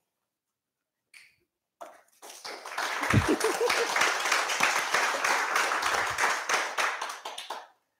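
A small audience clapping for about five seconds, starting about two seconds in, with a short voice sound about a second after the clapping begins.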